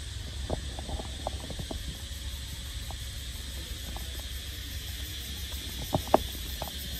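Open-air background noise: a steady low rumble and faint hiss, with a few light ticks in the first two seconds and two sharper ticks about six seconds in.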